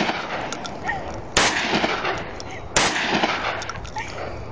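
Saiga-12 semi-automatic 12-gauge shotgun firing two shots, about a second and a half apart.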